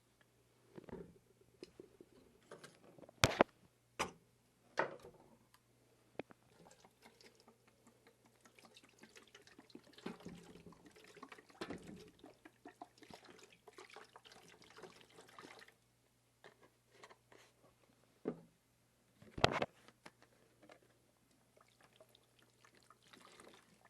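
Hydrogen peroxide poured into a container to soak cleaned deer skulls, a faint trickling pour through the middle stretch. A few sharp knocks come from the containers being handled, the loudest about 3 seconds in and again near 19 seconds.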